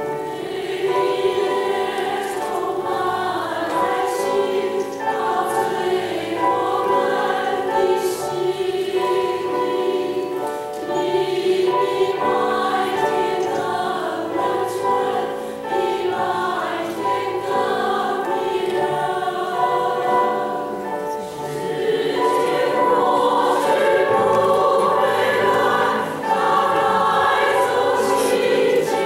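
Women's choir singing sustained, legato phrases, swelling louder in the last third.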